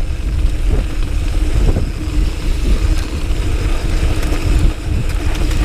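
Diamondback Sync'r mountain bike riding fast down a rough dirt trail: a steady rumble of tyres over the ground and the frame rattling, with scattered small knocks. Wind buffets the microphone.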